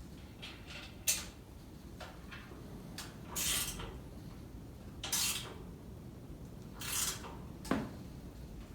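Handling of table saw parts and tools in a workshop: a sharp click about a second in, three short scrapes, and a knock near the end.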